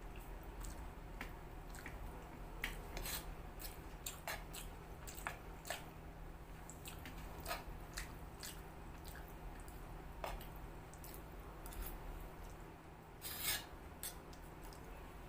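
A person eating noodles with a fork from a clay plate: scattered small clicks of the fork and wet chewing and mouth sounds, with one longer, louder slurp of noodles near the end.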